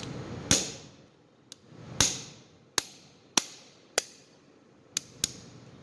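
Hammer striking in a series of sharp taps, about eight over five seconds and unevenly spaced, driving a rusted steel pin out of a vintage Swiss Army knife's handle. The loudest blows come about half a second and two seconds in.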